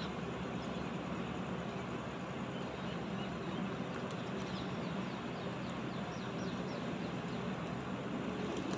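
Faint high chirps from pet parrots, a quick run of short falling notes through the middle, over a steady background noise.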